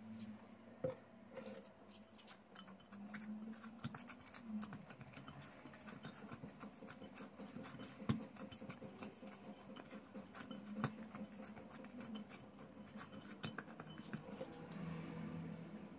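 Hands kneading soft, sticky bread dough in a glass bowl: a dense run of small sticky clicks and squelches, with about three sharper knocks.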